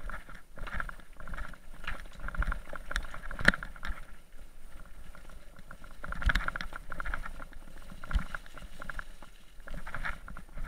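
Mountain bike clattering over a rough stony track: a dense stream of clicks and knocks from the frame and wheels, with one sharp knock about three and a half seconds in.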